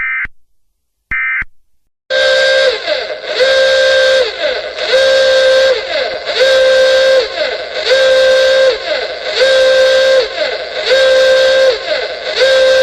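The last two of the three short, warbling data bursts of an Emergency Alert System end-of-message code. About two seconds in, a loud horn-like alarm tone starts and pulses eight times, each blast about a second long with a brief dip in pitch between blasts.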